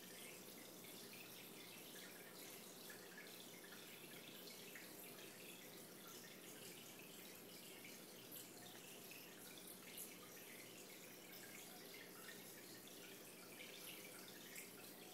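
Faint aquarium water dripping and trickling, with scattered small ticks over a low steady hum.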